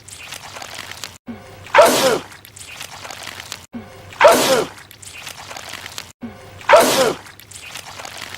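A man sneezing, the same sneeze looped three times about two and a half seconds apart, each a sudden loud blast with a falling pitch.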